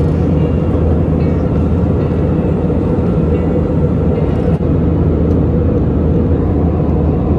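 Steady drone of a jet airliner in its climb after takeoff, heard from inside the passenger cabin: engine noise and rushing air.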